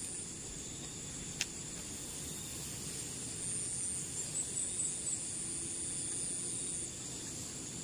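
Steady high-pitched insect chorus over a faint background hiss, with a single short click about a second and a half in.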